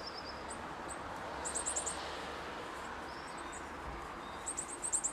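Small birds chirping: a quick run of high notes about a second and a half in and another near the end, with a few single calls between, over a steady outdoor background hiss.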